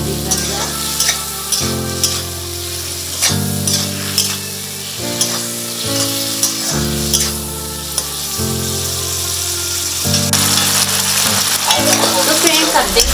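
Onions and tomatoes sizzling in hot oil in a metal kadhai while a metal spatula stirs and scrapes against the pan. Background music of sustained chords changes about every one and a half seconds underneath.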